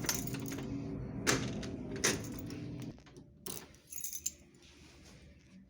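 A few sharp metallic clicks and jingles, like keys being handled, over a steady background hum that stops about three seconds in.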